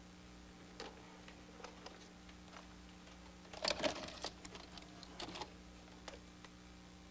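Scattered light clicks and handling noises over a steady low hum, with the loudest cluster of clicks a little over halfway through.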